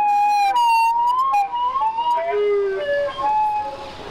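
A siren-like run of clear, held high notes that step from one pitch to another, with small slides between some of them, like a short tune.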